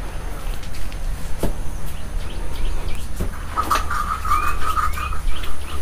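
Small birds chirping and calling, busiest in the second half, over a steady low rumble, with a single click about a second and a half in.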